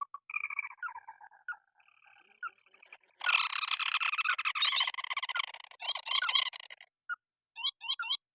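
Rice-field rails calling, most likely white-breasted waterhens: scattered repeated call notes, then a loud, fast croaking chorus from about three seconds in until near seven seconds, then short trills again.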